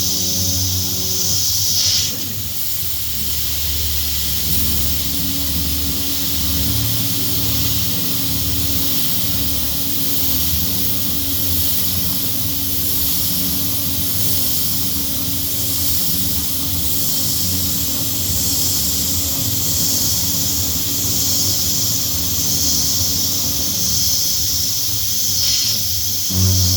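CNC router spindle running and cutting, a steady hiss with a low hum and a held tone under it. Background music is heard briefly at the start and comes back near the end.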